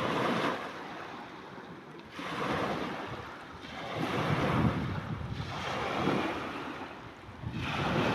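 Small waves washing in on a lake shore, swelling and falling back about every two seconds, with wind rumbling on the microphone.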